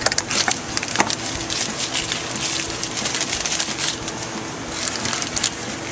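Paper and cardboard packaging being handled: irregular crinkling and rustling with small clicks as new cam parts are unwrapped, over a steady low hum.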